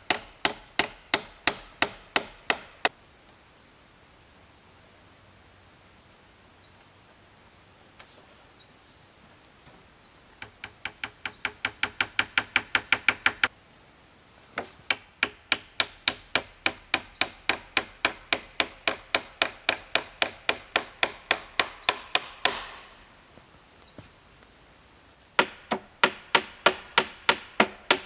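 A hand tool striking wood in quick, regular blows, about two or three a second. The blows come in runs of several seconds with short pauses between.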